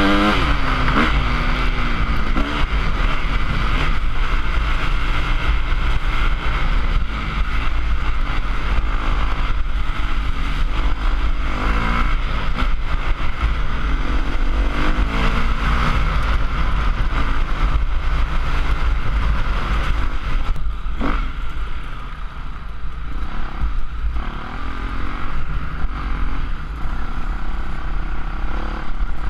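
Trail bike engine running under the rider, its revs rising and falling over rough ground, with a heavy low rumble on the microphone. A sharp knock comes about 21 seconds in, and the engine runs quieter at lower revs for a few seconds after.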